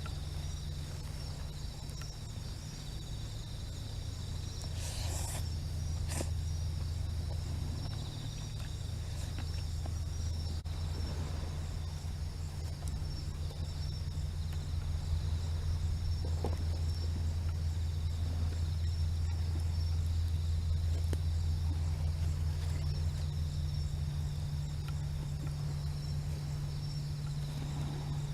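Night insects chirping in a steady high-pitched chorus, over a steady low hum. A couple of brief clicks come about five and six seconds in.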